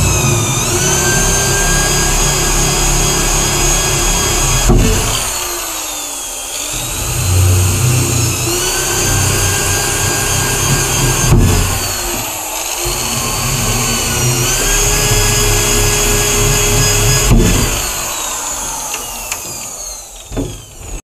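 Electric drill boring holes through moulded sectional water-tank panels. The motor whine sags in pitch and recovers, broken by a sharp click three times. It winds down near the end and stops.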